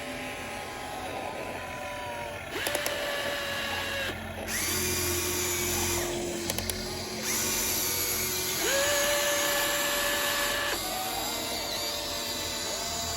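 Electric motors of a toy RC excavator whining in short spells as its arm, boom and bucket move. Each spell holds a steady pitch, some rising as the motor spins up, and the pitch changes every second or two as different functions are driven, with a few light clicks.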